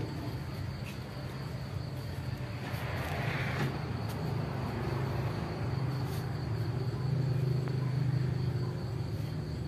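Crickets chirping steadily at night over a low steady hum, with a brief rustle about three seconds in.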